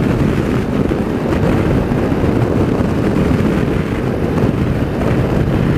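Steady wind rush on a helmet-mounted boom microphone while riding a Suzuki V-Strom 650 motorcycle at road speed, with the bike's running engine underneath.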